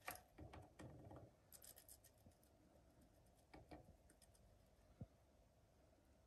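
Faint scratching and rustling as zebra finches shift about in a wooden nest box. The rustles cluster in the first two seconds, a few more come later, and one soft click falls about five seconds in.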